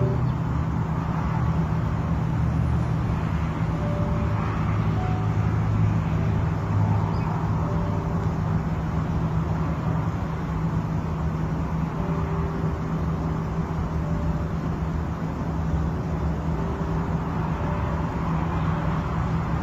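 Steady hum of distant city traffic, with a few faint short tones here and there.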